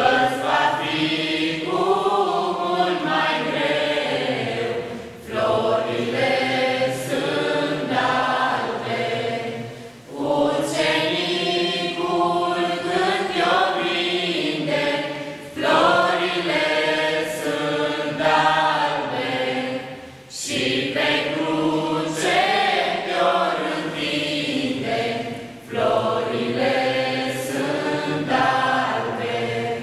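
Small mixed group of young men and women singing a Romanian Christmas carol (colind) together, in sung phrases broken by short breaths about every five seconds.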